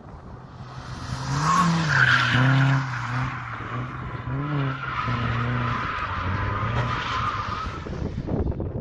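Nissan 240SX drifting: the engine revs up and down several times while the rear tires squeal in long screeches, loudest about two seconds in and again from about five to eight seconds in.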